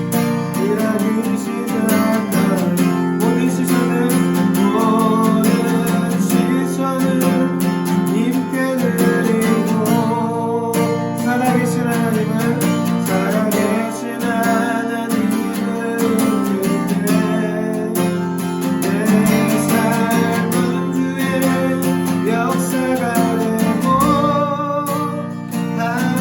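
Worship song: acoustic guitar strummed with singing over it.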